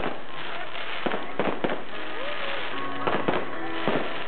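Fireworks display: a string of about seven sharp bangs from aerial shells bursting, irregularly spaced, over a continuous noisy background.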